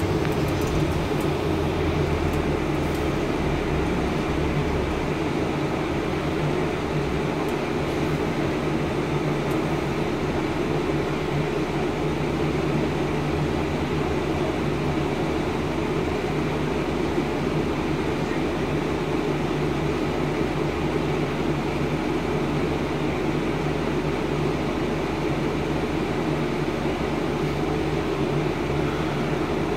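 Scania N230UD double-decker bus's five-cylinder diesel engine running, heard inside the upper deck as a steady low hum with an even rush of fan and road noise.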